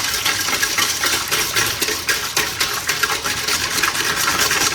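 A whisk or utensil stirring a liquid dressing in a bowl, making a rapid, uneven clatter of many small clicks against the bowl.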